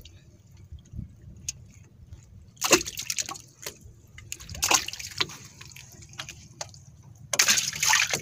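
Freshly caught live mackerel splashing and sloshing in the water of a boat's live well, in three short bursts: about a quarter of the way in, near the middle, and near the end.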